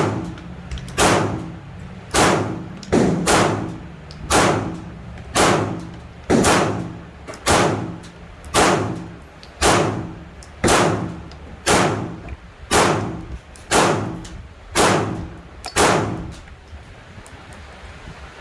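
Gunshots: a steady string of about sixteen single shots, roughly one a second, each with a ringing echo tail. They stop about two seconds before the end.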